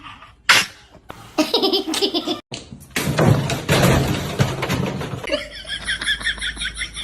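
People laughing hard across a few short clips that start and stop abruptly, with a rapid high-pitched pulsing laugh near the end.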